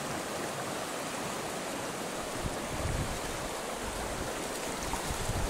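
Fast mountain river rushing steadily over a stony bed, a strong current running past a wading angler.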